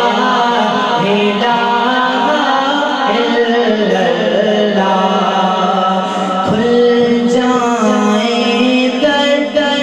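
A man singing a naat, an Urdu/Punjabi devotional poem, in long melismatic lines into a microphone, over a steady low drone.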